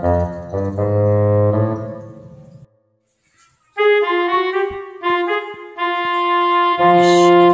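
Instrumental background music with a melody of held notes. It stops for about a second a little under three seconds in, then starts again.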